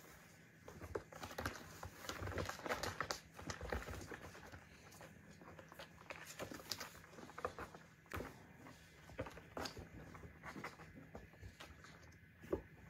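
Kittens and a cat wrestling and scrambling around a play slide on carpet: irregular soft patter of paws with light scuffs and knocks against the toy.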